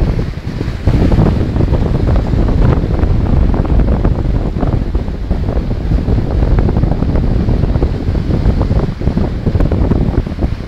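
Wind buffeting the microphone in a loud, uneven low rumble, over Caspian Sea waves washing onto the beach.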